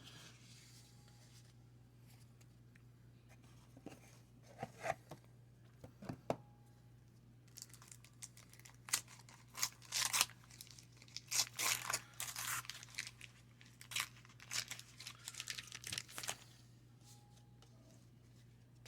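Wax-paper baseball card pack wrapper being torn open and crinkled: a quick run of sharp tearing rips through the middle of the stretch, after a few light handling sounds.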